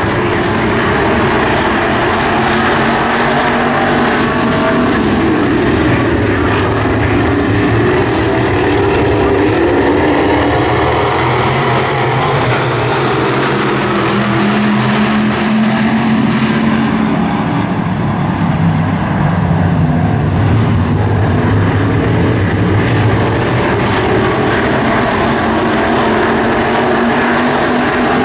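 A field of WISSOTA Midwest Modified dirt-track race cars running at racing speed, their V8 engines a loud, continuous drone, swelling in the middle as the pack passes close by.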